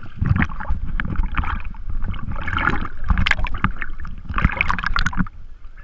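Lake water splashing and sloshing against a camera held at the surface, in irregular splashes with sharp little slaps and a low rumble of water moving against the housing.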